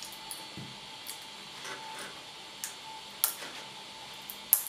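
Metal scraper blade working under an ABS print stuck to a PRINTinZ build plate, making a string of sharp clicks and short scrapes as it pries the part loose; the part is stuck on firmly but coming away. The two loudest clicks come a little over three seconds in and near the end.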